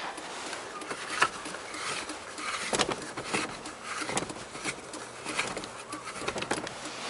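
Irregular rustling with scattered light clicks and knocks: handling noise as a camera is moved close over fabric car seats.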